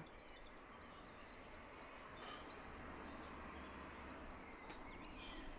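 Near silence: faint steady background ambience with a few faint, short bird chirps.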